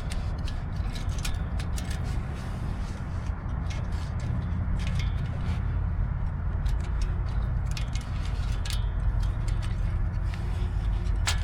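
Scattered light clicks and rattles of the injector wiring harness and its connectors being worked out of a Detroit Series 60 engine head, over a steady low rumble.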